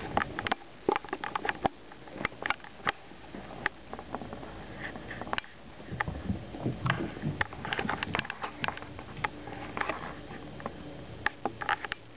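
Two cats playing: irregular quick taps, patters and scuffles of paws and a toy on the floor.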